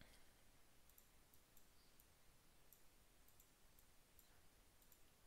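Near silence: room tone with faint, scattered computer mouse clicks, about eight or nine spread unevenly.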